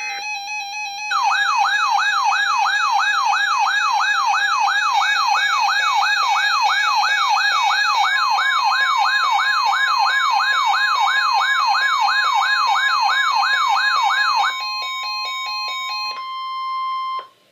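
Emergency alert tones: a loud, fast rising-and-falling siren-like wail, about two and a half sweeps a second, with a steady high alert tone joining about halfway. Near the end comes a short run of stepped beeping tones, then the steady tone alone, which cuts off suddenly.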